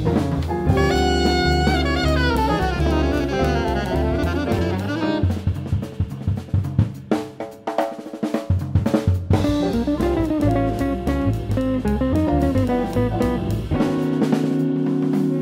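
Small jazz combo of upright bass, piano, electric guitar and drum kit playing an up-tempo tune. About five seconds in the band drops out, leaving a few seconds of drums alone. The full band then comes back and settles on a held chord near the end.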